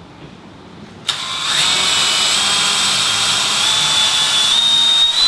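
A cordless drill starts about a second in and runs steadily, boring a small test hole up through a drywall ceiling into a wood joist. Its motor whine steps slightly higher as it goes.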